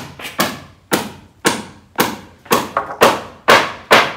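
Hammer blows driving nails into a timber roof frame, a steady run of about two strikes a second that stops near the end.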